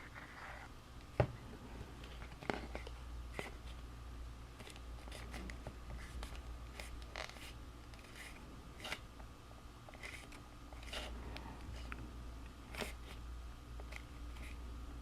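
Cardstock being handled and folded into place: scattered soft taps, rustles and scrapes, with a sharper knock about a second in, over a low steady hum.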